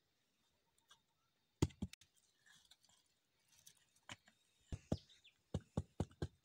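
Short knocks and taps of a hand packing chopped fish and herbs into a green bamboo tube: two close together about a second and a half in, then a run of knocks coming closer together in the second half.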